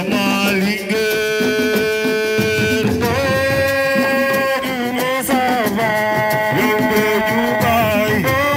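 Music: a melody of long held notes that slide up and down between pitches, over a continuous accompaniment.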